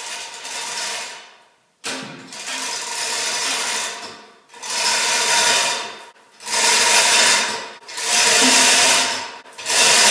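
Manual chain hoist being pulled hand over hand under load, lifting a heavy cast-iron lathe cabinet leg: about six bursts of chain and hoist-mechanism noise, each one to two seconds long, with short pauses between pulls.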